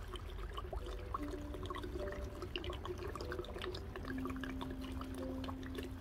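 Liquor glugging out of two upturned 1.8-litre plastic bottles into a large jar. The bubbling gurgle is broken by short hollow tones that shift in pitch as air rises into the bottles.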